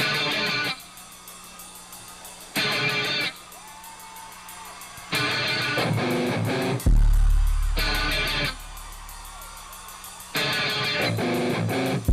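Rock music: loud guitar chord stabs about every two and a half seconds, with a softer held tone between them, and a deep bass note coming in about seven seconds in.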